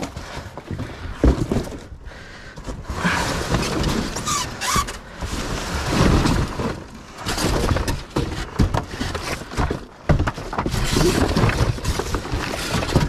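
Rummaging through junk in a dumpster: a box being handled, shaken and opened, with rattling, rustling and repeated knocks of the debris inside.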